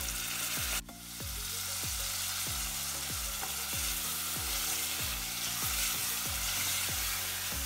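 Chopped tomatoes sizzling as they fry in hot oil tempering in a stainless steel pan, a steady hiss that dips briefly about a second in, while they are stirred with a wooden spoon.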